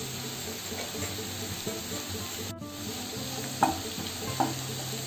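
Diced onion, potato and carrot sizzling in hot oil in a non-stick pan while a spatula stirs them, with two sharper scrapes of the spatula on the pan about three and a half and four and a half seconds in.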